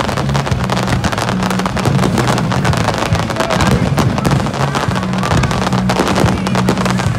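Fireworks bursting and crackling in rapid succession, a dense run of sharp bangs and pops, with music playing underneath.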